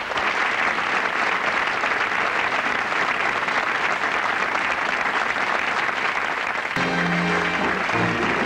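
Studio audience applauding. About seven seconds in, music starts abruptly under the continuing applause.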